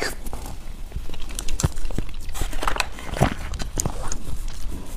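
Close-miked chewing of a mouthful of shaved ice: irregular crisp crunches and clicks. A foil pouch crinkles near the end.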